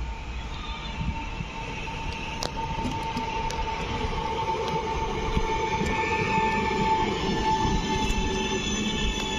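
Electric multiple-unit passenger train drawing in past the platform, its rumble growing louder as it nears. A steady whine runs throughout, and higher squealing tones join in over the second half.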